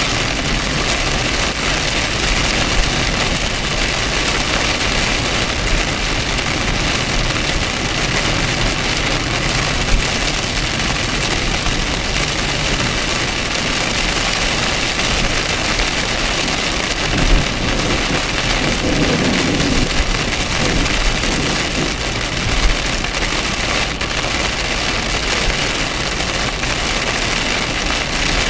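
Heavy rain on a moving car, heard from inside the cabin as a steady wash over road and engine noise, with a few brief thumps.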